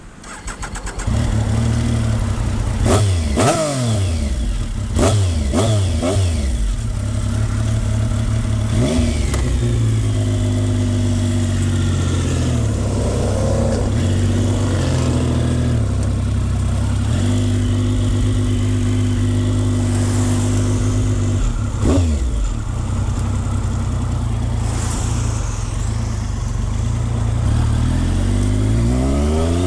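Triumph Speed Triple 955i's three-cylinder engine catching about a second in and running, blipped up and down several times in the first few seconds, again around the middle, and rising near the end. It is being restarted after cutting out.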